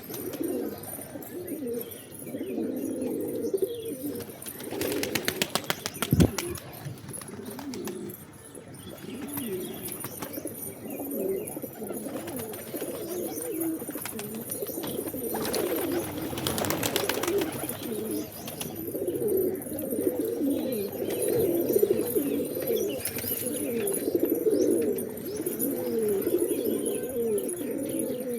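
A flock of pigeons cooing continuously, many overlapping low coos. Twice, about five seconds in and again around the middle, a spell of rapid wing flapping, with a single sharp knock during the first.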